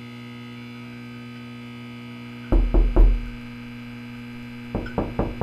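Steady electronic synth drone, a buzzing hum of many held tones. About halfway through come a few short, deep bass-heavy hits, and near the end a quicker run of about four hits.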